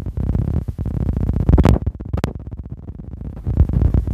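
Low, gusty noise of wind buffeting and handling on a phone's microphone, with two sharp clicks about a second and a half and two seconds in.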